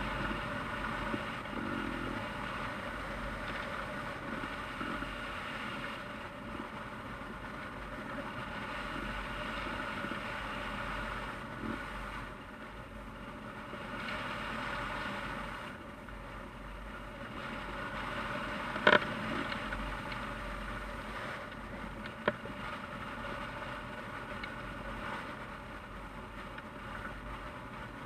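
Steady rush of air over a hang glider in flight, buffeting a camera mounted on the wing, with two sharp knocks about three seconds apart late on.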